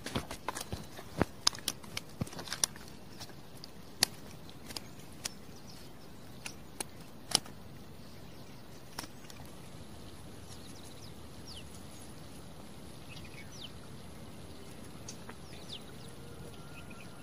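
Irregular sharp clicks and knocks for the first seven seconds or so, then a steady outdoor hiss with faint, brief bird chirps.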